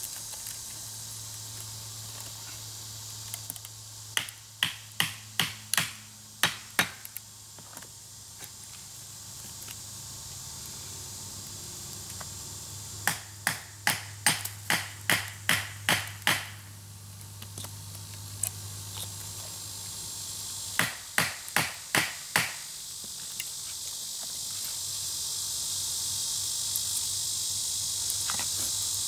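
Sharp knocks of a wooden wedge being hammered into a branch section to split it along the grain. The blows come in three runs of several quick strikes each, about two a second.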